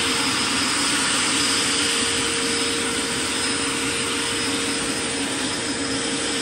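Scale MD600N RC helicopter running steadily in a low hover: its model gas turbine gives a constant high whine over the even rush of the main rotor and the electric ducted fan in the tail boom, the fan throttled back to 20% to cut its current draw.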